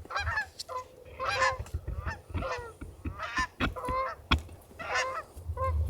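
Geese honking and clucking in quick, overlapping clusters of short calls, with a single sharp click about two-thirds of the way through.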